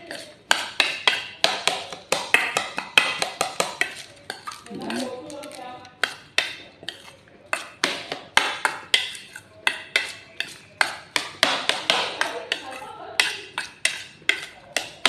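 Metal spoon stirring diced vegetables in a stainless steel bowl, clinking sharply against the bowl several times a second in an uneven rhythm, easing briefly around five seconds in.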